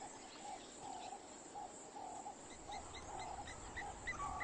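Faint outdoor wildlife ambience of birds calling. A low note repeats about twice a second, and from about halfway in a higher, quicker chirping joins it.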